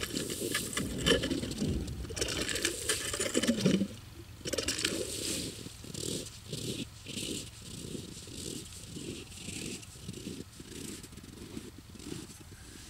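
Rattling and handling noise, then from about four seconds in an even run of crunching steps in frozen snow, about two a second.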